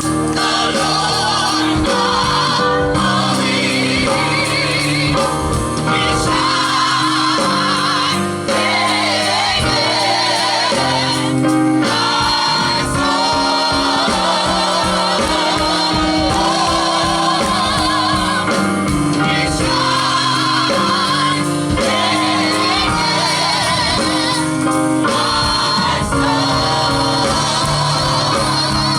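Gospel group singing in harmony over instrumental accompaniment.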